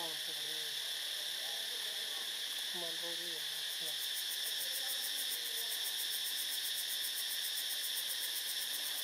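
Steady insect chorus in forest, with a fast high pulsing insect trill joining about four seconds in. Two short low hooting calls sound near the start and about three seconds in.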